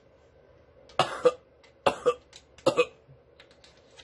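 A person coughing in three short double bursts, a little under a second apart, just after swallowing a dose of harsh-tasting Buckley's cough syrup.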